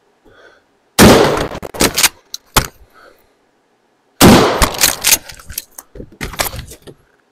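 Mossberg 590 pump-action shotgun fired twice, about three seconds apart. After each shot come several shorter, quieter clacks as the pump is worked.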